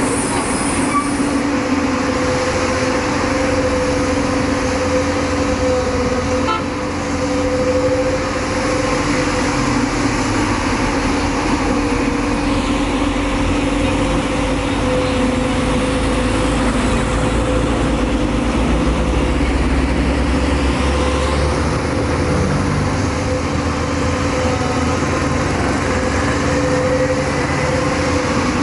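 JCB tracked excavator's diesel engine running steadily under working load with a constant pitched drone, the rumble growing heavier for a few seconds past the middle as it digs and moves soil.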